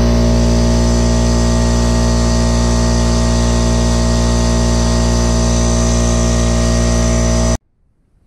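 Loud, steady machine hum with an even low pitch, unchanging throughout, that cuts off abruptly near the end.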